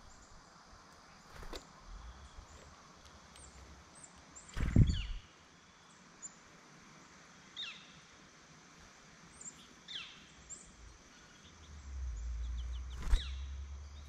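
Short down-slurred songbird calls at a backyard feeder in woodland, a few seconds apart, with a loud low thump about five seconds in. Near the end a low rumble and a sharp knock come just before a tufted titmouse is on the tray.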